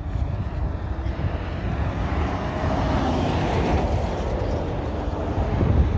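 A road vehicle passing by, its tyre and engine noise swelling to a peak about halfway through and then fading, with wind buffeting the microphone throughout.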